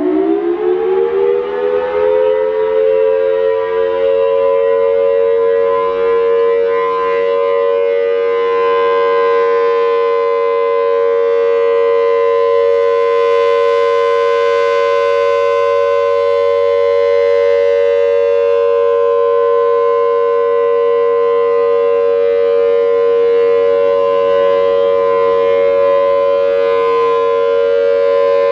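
Federal Signal Thunderbolt 1000T outdoor warning siren sounding its alert signal. It finishes winding up in the first couple of seconds, its pitch rising and levelling off, then holds a loud, steady tone, growing a little brighter around the middle.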